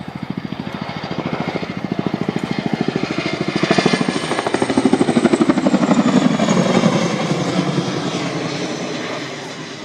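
Chinook tandem-rotor helicopter flying past, its rotor blades beating in a rapid, even thudding. The sound grows louder, peaks around the middle and fades, with its pitch falling as it goes by.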